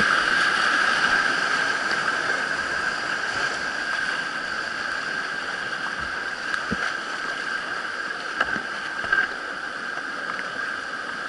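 Whitewater rapids rushing steadily around a kayak, slowly growing quieter across the stretch.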